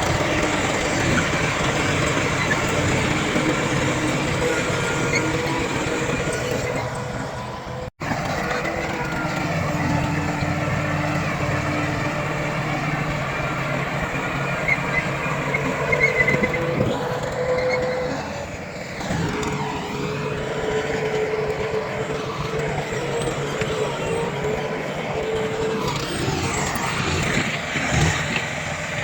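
Heavy diesel earthmoving machinery, a bulldozer and dump trucks, running and working steadily, with engine pitch shifting as the machines load up and ease off. The sound cuts out for an instant about eight seconds in.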